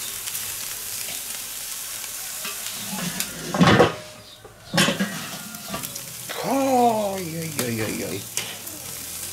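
Pork belly slices and other meat sizzling over hot coals in a charcoal kettle grill. About three and a half seconds in, the lid shuts with a clank and the sizzle goes quieter. The lid comes up again a second later, and a falling, drawn-out tone follows near the end.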